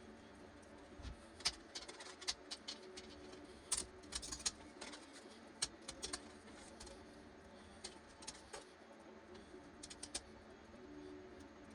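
Scattered light clicks and taps of small hard objects being handled, irregular and bunched in the first half.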